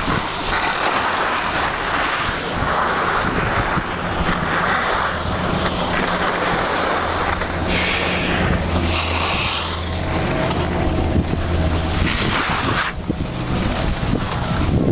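Wind buffeting the microphone of a camera carried by a moving skier, mixed with the steady hiss of skis sliding over packed snow. Around the middle there is a stretch of rustling as the camera brushes against jacket fabric.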